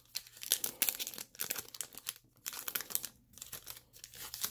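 Foil wrapper of a trading-card pack being torn open and crinkled by hand, an irregular run of crackles and rustles with short pauses.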